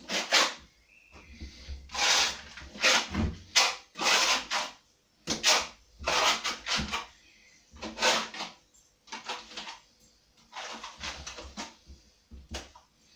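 Steel plastering trowel swept across a wall, spreading and smoothing a skim coat of wet Thistle Multi-Finish plaster in repeated scraping strokes with short pauses between.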